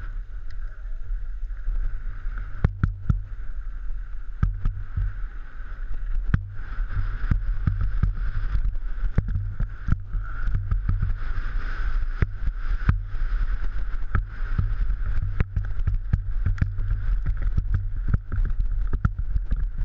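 Downhill mountain bike rattling down a rough gravel trail, heard from a helmet-mounted camera: a heavy steady rumble of wind and riding noise with frequent sharp knocks from the wheels and frame hitting stones and bumps.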